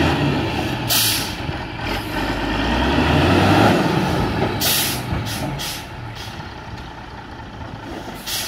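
Ten-wheel dump truck's diesel engine running while the raised bed tips out a load of soil, with a rushing swell at its loudest around the middle. Short sharp air hisses from the truck's air system come about a second in, several in quick succession around five seconds, and one near the end.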